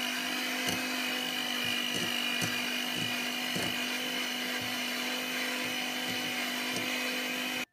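Electric hand mixer running at a steady speed, its beaters whipping cream cheese: a constant motor hum with a high whine and a few light ticks. It switches off abruptly near the end.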